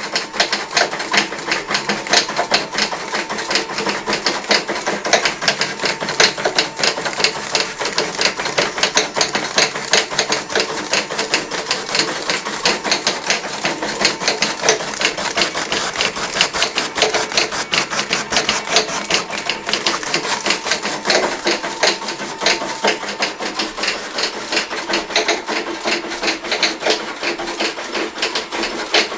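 Austik Opal 6 rotary die-cutter running inline with a thermal transfer printer, die-cutting and feeding self-adhesive label stock: a fast, even clatter of clicks that keeps going without a break.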